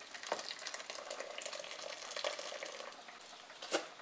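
Warm milk with melted butter poured from a pot onto hot, roughly mashed red potatoes: a steady, crackly splashing pour lasting about three seconds. A single sharp knock follows near the end, a utensil against the pot.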